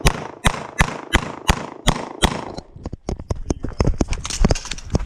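Rapid string of pistol shots in a competitive shooting stage: about three shots a second for the first two and a half seconds, then, after a short pause, a faster cluster of shots.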